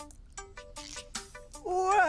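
Light background music of short, separate plucked notes with soft taps. Near the end a high cartoon-like voice starts a long, gliding shout.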